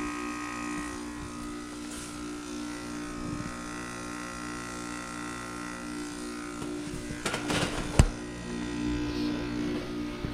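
Residential heat pump outdoor unit running with a steady buzzing hum. A brief rustle comes about seven seconds in, then a single sharp knock about eight seconds in.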